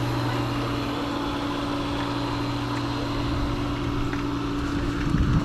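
Steady motor hum: a constant low drone with a second tone above it and an even hiss behind, the lowest part fading out near the end.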